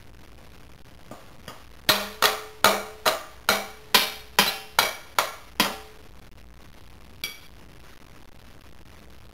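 Wooden spoon banged on metal pots and lids: about ten quick, loud clanging strikes, each ringing briefly, then one lighter strike near the end.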